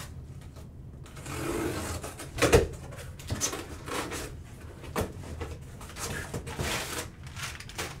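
A sealed box of baseball cards being opened and handled: cardboard and wrapper rustling, with scattered clicks and knocks. A sharp knock about two and a half seconds in is the loudest sound.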